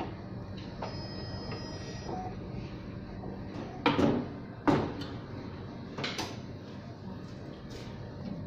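A few sharp knocks over a steady hum. The two loudest come about four and five seconds in, with fainter ones near six and eight seconds.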